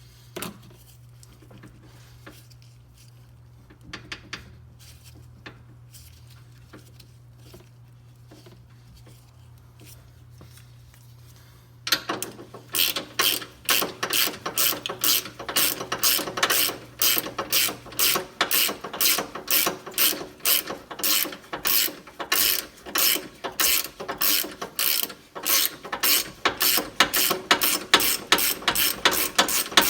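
Hand ratchet wrench clicking as a bolt is turned on the control-arm mounting. It starts about twelve seconds in and goes on as a fast, even run of about three clicks a second. Before it there are only a few faint clicks over a low hum.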